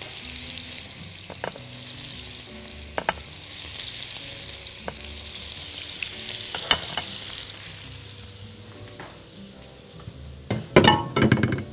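Kofta frying in a hot pan greased with a little oil, butter or ghee: a steady sizzle that thins out after about seven seconds, with a few light clicks.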